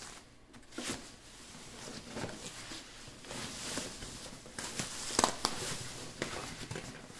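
Plastic wrapping rustling and crinkling as a projector is pulled out of it and handled, with scattered clicks and a sharp knock about five seconds in.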